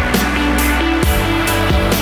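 Electronic background music with a steady beat and deep held bass notes.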